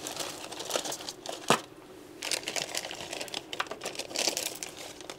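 Crinkling and rustling of a small plastic parts bag as a servo and its lead are handled, with small clicks throughout and one sharp click about one and a half seconds in.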